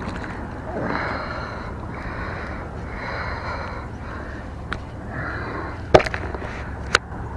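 Heavy breathing close to a body-worn camera's microphone, in puffs about once a second, with a few sharp clicks of handling near the end.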